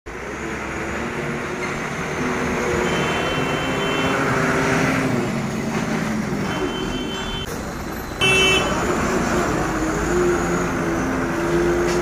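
Ashok Leyland dump truck's diesel engine running as it pulls along, its pitch rising and falling a little. A short truck horn blast about eight seconds in is the loudest sound, with fainter brief high tones around three and seven seconds in.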